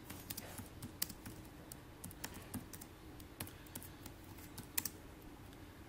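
Computer keyboard being typed on: irregular keystroke clicks, with one sharper press near the end.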